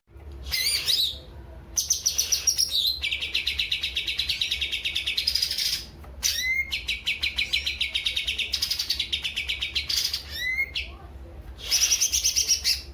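A green leafbird (cucak ijo) singing: long, fast trills in several phrases, broken by short upward-sweeping notes and brief pauses. It is a young bird still learning its song.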